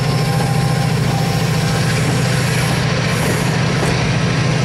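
Pair of Class 68 diesel locomotives working under power as they haul a train away, a steady low engine drone, with the coaches rolling past on the rails.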